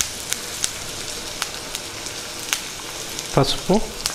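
Green chilli slits, finely chopped onions and curry leaves frying in hot oil: a steady sizzle with scattered sharp crackles and pops.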